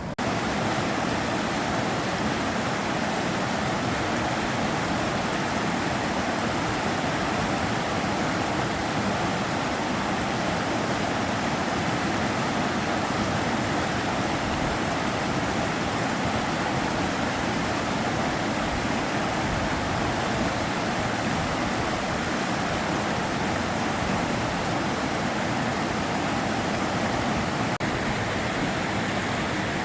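Sava River water rushing steadily, a continuous, even wash of flowing water.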